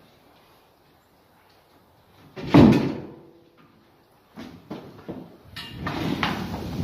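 A loud bang about two and a half seconds in, with a brief ring after it, then clattering knocks and rustling from objects being handled.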